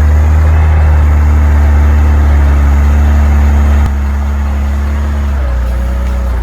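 Heavy truck engine running steadily with a deep, loud drone; it drops a step in loudness about four seconds in.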